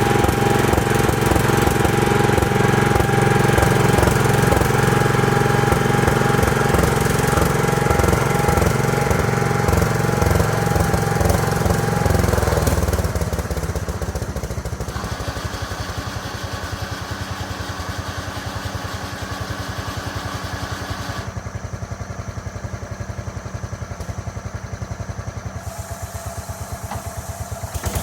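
A homemade sawmill's small engine running at speed with a steady whine. About halfway through it drops to a quieter, lower idle and keeps running.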